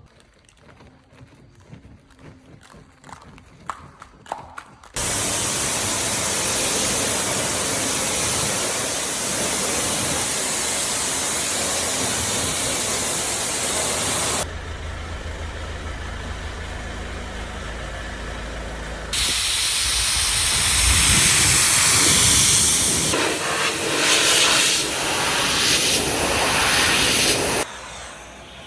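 Loud steady hissing spray that starts abruptly about five seconds in, after a few light clicks. It drops to a lower, deeper rush for a few seconds in the middle, then comes back louder and stops shortly before the end.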